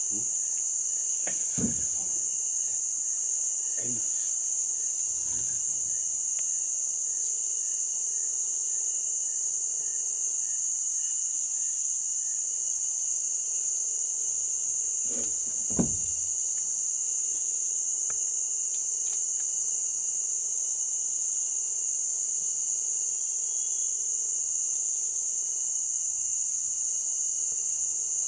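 Steady, high-pitched chorus of insects such as crickets, unbroken throughout. Two brief low knocks stand out, about one and a half seconds in and again about sixteen seconds in.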